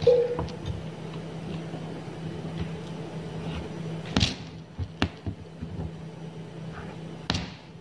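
Aari hook needle tapping and clicking as it pierces taut fabric stretched on an embroidery frame beside metal beads: a few sharp clicks, the loudest about four seconds in, over a steady low hum.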